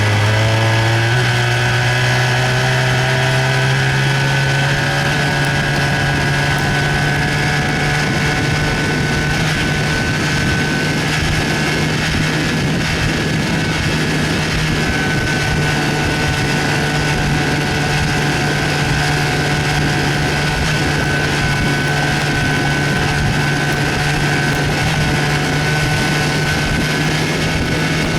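1970 Evinrude 25 hp Sportster two-cylinder two-stroke outboard motor running under way, its pitch rising over the first few seconds as it speeds up, then holding steady at a higher speed. The owner reports that the exhaust baffle gasket leaks badly.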